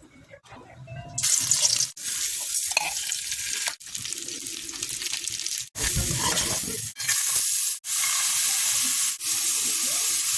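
Fried rice sizzling in a hot pan, starting about a second in and carrying on with a few brief breaks.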